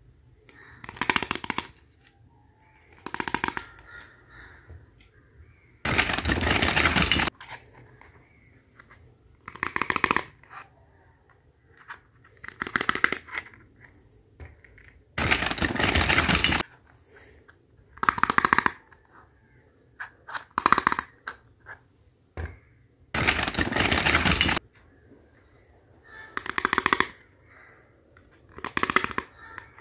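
Plastic toy dishes and play food clattering as they are handled and set down on a table, in repeated bursts of rattling clicks. Three longer, louder bursts come about every nine seconds, with short clatters between them.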